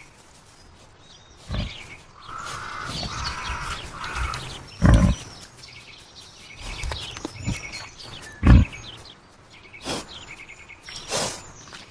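Birds chirping repeatedly, with several short heavy low thumps a few seconds apart, the loudest about five and eight and a half seconds in, and a three-part call in between.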